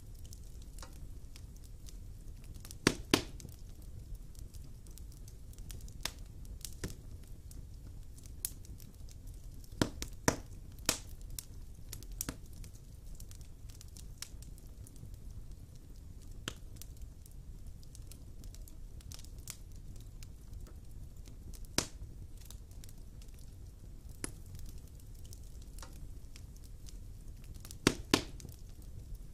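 Wood fire in a fireplace crackling: a low steady rumble of the flames under scattered sharp pops of the burning logs, the loudest pops coming in quick clusters about three seconds in, around ten seconds in, and near the end.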